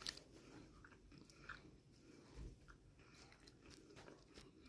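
Near silence with faint, scattered chewing and crunching sounds.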